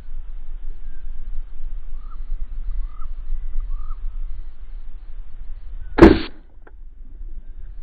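Fishing crossbow shot: a single sharp crack of the string releasing about six seconds in. It sounds over a steady low rumble, and a bird calls three short times a few seconds before.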